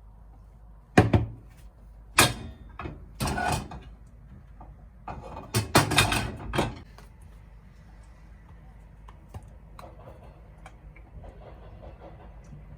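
Kitchen items being handled: a few sharp knocks and clatters, then a busier run of clattering in the middle, then a few faint clicks.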